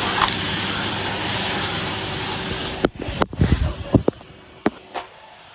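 Numatic Henry vacuum cleaner running steadily, then cut off abruptly a little under three seconds in, followed by a few sharp knocks and clatters.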